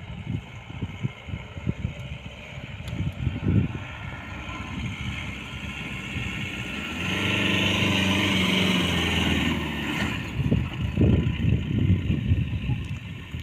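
Diesel engine of a Mahindra off-roader running hard at steady high revs for about three seconds in the middle, then dropping away. Gusts of wind buffet the microphone before and after.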